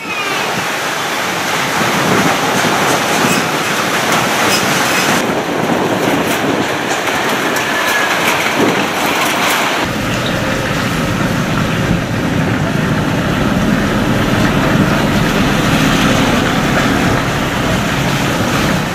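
Typhoon-force wind and rain, a loud continuous roar of noise that changes abruptly about five and ten seconds in.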